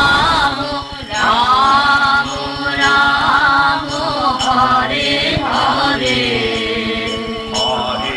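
Kirtan: voices singing a devotional chant in long held notes that bend in pitch.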